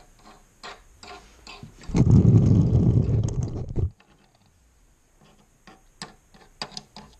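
Plastic toys being handled on a wooden floor: light clicks and taps, then about two seconds in a louder rubbing rumble close to the microphone that lasts about two seconds, and a few more taps near the end.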